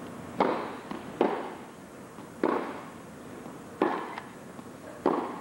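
Tennis rally: a serve and then racquets striking the ball back and forth, five sharp hits roughly a second and a quarter apart, with fainter ticks of the ball bouncing between them.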